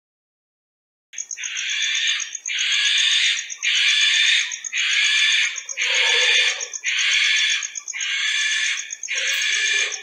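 Barn owl calling: a run of hissing screeches, each about a second long, repeated roughly once a second and starting about a second in. A thin, steady high-pitched line runs above them.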